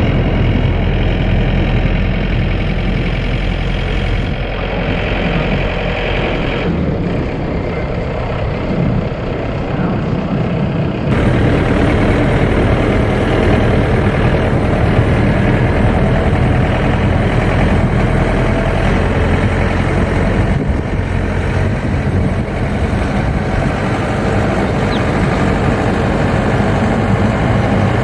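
Steady machinery or engine noise with a low hum. It changes abruptly several times, about 4, 7, 11 and 21 seconds in.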